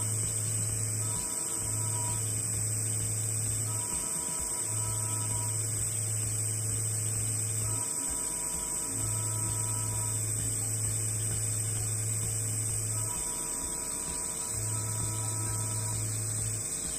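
TIG welding arc burning steadily on thick steel plate as it melts its way into the metal. It makes an electric hum with a constant high-pitched whine, and a deeper hum that drops out briefly every two to four seconds.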